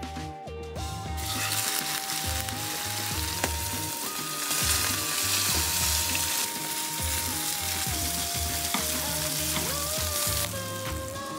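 Beef steak searing in a hot pan in butter, giving a loud, steady frying sizzle that starts about a second in and stops near the end. Background music with a pulsing bass and a simple melody plays under it.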